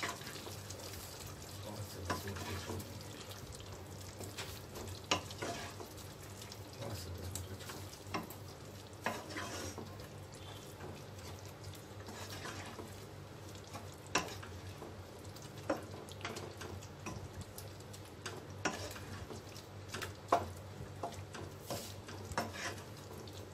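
Wooden spoon stirring thick chicken curry masala in a pot, with irregular soft knocks and scrapes against the pot every second or two, over a low sizzle of the masala frying without water.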